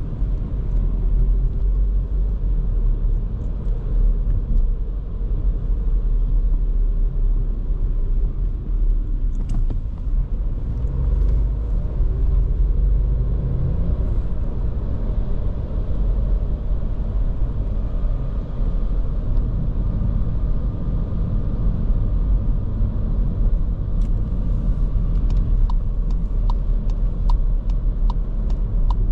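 Cabin sound of a Škoda Kamiq's 1.0 TSI three-cylinder turbo petrol engine and its tyres on the road during city driving: a steady low rumble. Near the end a regular ticking starts, about one and a half ticks a second.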